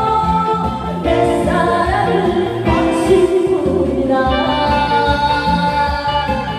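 Women singing a slow song in long held notes over accompaniment with a steady beat.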